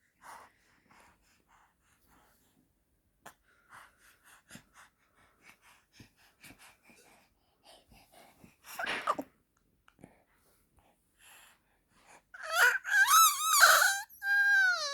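Baby squealing in high-pitched, wavering, dolphin-like cries. Soft breaths and small mouth sounds at first, one short squeal about nine seconds in, then a run of loud squeals near the end.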